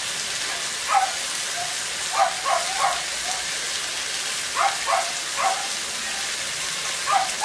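Vegetables and tomato paste sizzling steadily in a hot wok, with a dog barking in short clusters of two or three barks every couple of seconds.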